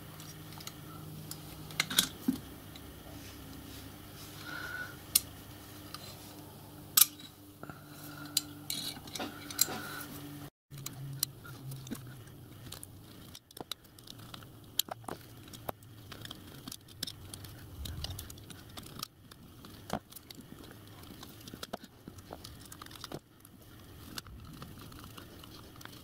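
Scattered clicks and knocks of small steel parts being handled and fitted together by hand: the springs going onto the axle boxes of a miniature steam locomotive's trailing pony truck. A low steady hum sounds underneath for the first ten seconds or so, then stops.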